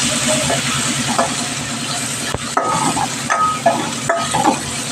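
Chopped vegetables sizzling in hot oil in a stainless-steel kadai while a steel spoon stirs them, scraping and clinking against the pan several times in the second half.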